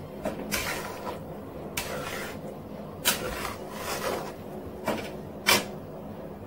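A spatula scraping and stirring thick jackfruit pulp in a metal pan as it is cooked down, in repeated strokes about once a second; the sharpest scrape comes near the end.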